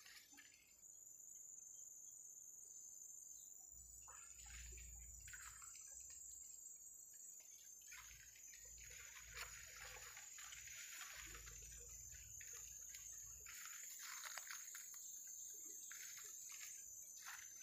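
Faint rustling of leaves and twigs in short irregular bursts as someone pushes through dense forest undergrowth, over a steady high insect drone. A low rumble runs through the middle stretch.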